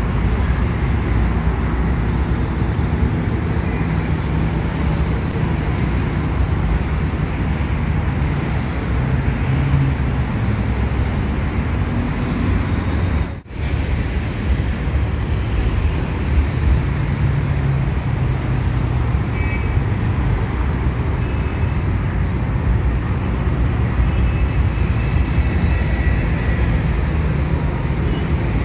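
Steady road traffic on a busy city street: cars and buses running past in a continuous low rumble, which cuts out for an instant about halfway through.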